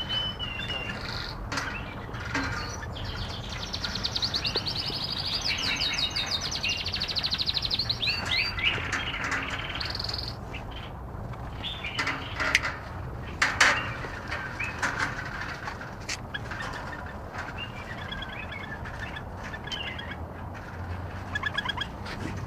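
Bulbuls chirping and calling, with a fast trill of rapidly repeated notes a few seconds in and sharp calls near the middle, over a steady low rumble.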